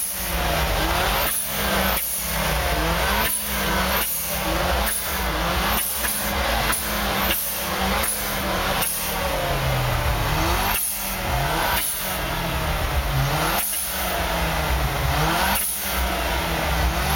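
Turbocharged four-cylinder engine of a Mazda 3 MPS revved in short repeated throttle blips, roughly one or two a second with a few longer gaps, each blip ending in a sharp hiss.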